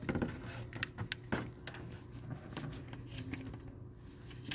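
Irregular light metallic clicks and knocks of a hand tool and socket being handled on the engine, about a dozen separate ticks with no steady rhythm.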